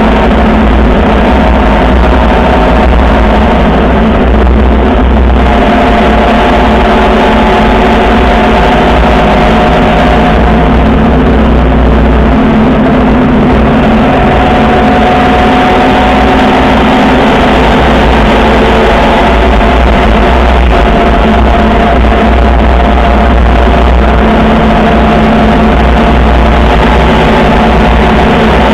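Vehicle engine running steadily at road speed, its pitch drifting a little as speed changes, with heavy wind rumble on the microphone.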